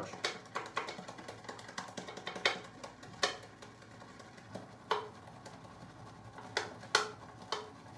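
A 26 mm badger shaving brush being worked in a plastic composite lathering bowl, with soft scrubbing and irregular sharp clicks and knocks as the brush handle strikes the bowl. A quick run of clicks comes at the start, then single knocks every second or so. This is lather being built up in the bowl.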